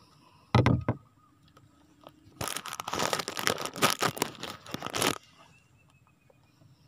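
A brief bump about half a second in, then a thin plastic bag crinkling and rustling for about three seconds as a hand rummages in it.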